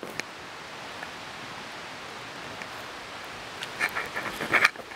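Steady faint hiss of ambience, then from about three and a half seconds in a quick run of short scuffing, crunching steps on debris.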